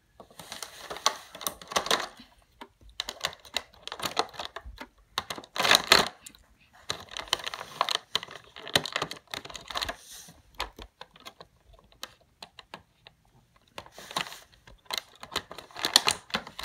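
Bursts of quick plastic clicks and crinkles as a toy figure's box and plastic packaging are handled and opened, pausing now and then.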